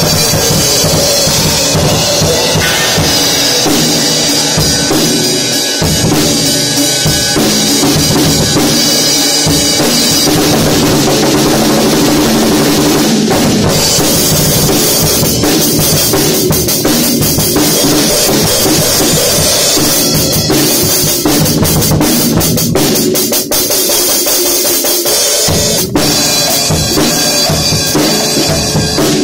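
A drum kit played loudly without a break, with many fast strikes.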